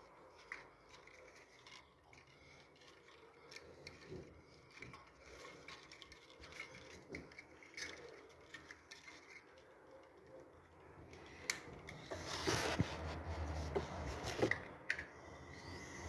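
Small clicks and rubbing from stiff electrical wires and a plastic Wi-Fi mini smart switch module being pushed into a wall box by hand. The last few seconds hold louder scraping and rustling with a few sharp clicks.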